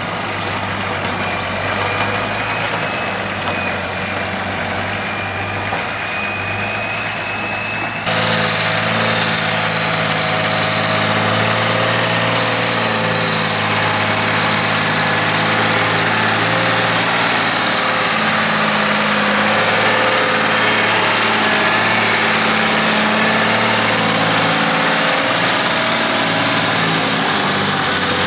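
Toyota 2H turbo-diesel straight-six in a Galion 503 motor grader running steadily as the grader drives and works the gravel road, with a high steady whine over the engine note. The sound gets suddenly louder about eight seconds in.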